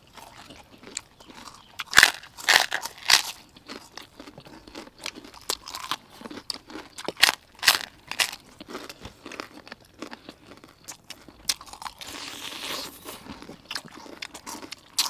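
Close-up eating of baked chicken wings: irregular sharp crunchy bites and chewing, loudest about two to three seconds in and again around seven seconds.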